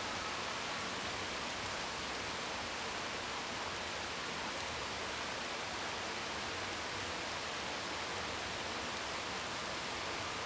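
Steady rainfall: an even hiss of rain without distinct drops or thunder.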